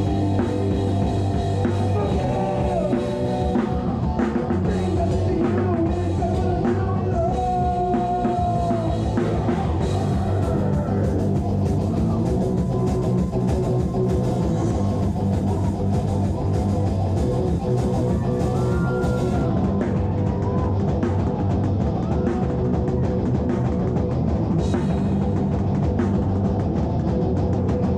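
Live rock band playing at a steady full volume, with the drum kit loud and close: a drum-mounted GoPro camera's own microphone picks up drums, bass and guitar.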